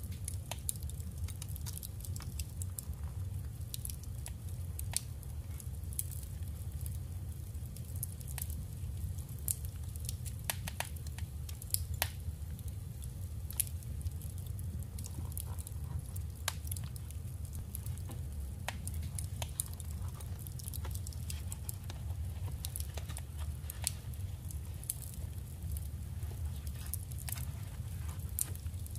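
Paper and scrapbooking materials being handled in journal crafting: scattered small clicks, taps and rustles at an irregular pace, over a steady low hum.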